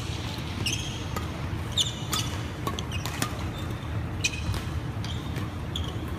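Badminton rally: several sharp smacks of rackets hitting the shuttlecock, mixed with short high squeaks of sports shoes on the wooden court floor, over a steady low background noise.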